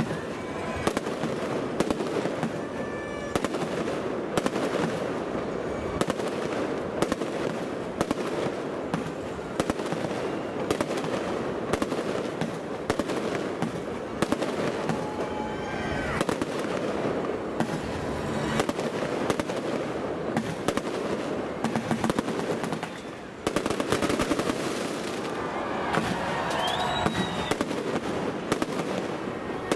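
Aerial fireworks bursting close overhead in a rapid, near-continuous barrage of bangs and crackle, with a few faint rising whistles and a short lull about 23 seconds in.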